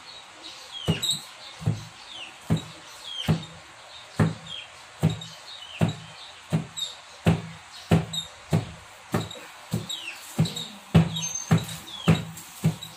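Large knife chopping a bamboo shoot into small pieces on a wooden board: steady chops a little more than once a second, coming faster near the end.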